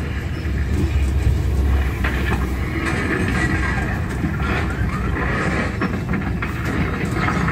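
Steady low rumble of a moving bus heard from inside its cabin: engine and road noise.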